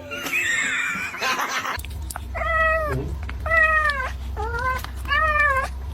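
A cat meowing four times in quick succession. Each short meow rises and falls in pitch, and they begin about two seconds in, over a low steady hum.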